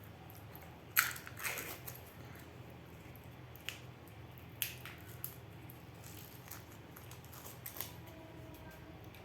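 Surprise-egg packaging being opened by hand: scattered crackles and sharp clicks, loudest about a second in, then a few more spread over the next several seconds.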